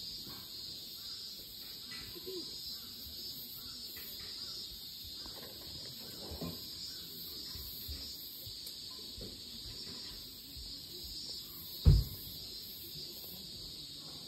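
Insects chirping steadily in a high, softly pulsing drone, with faint small scuffs and one sharp thump near the end.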